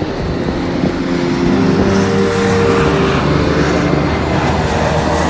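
Boeing 757-200's twin turbofan engines at takeoff thrust as the airliner rolls down the runway: a loud rushing jet noise with several steady engine tones, growing louder over the first second and a half, then holding.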